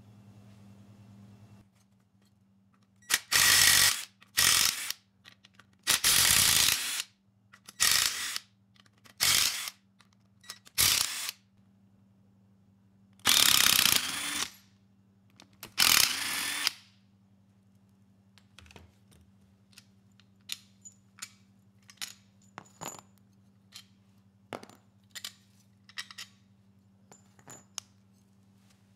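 Cordless power tool run in about eight short bursts, spinning out the crankcase cover bolts of a Briggs & Stratton engine, followed by a series of light metallic clicks as parts are handled in the second half.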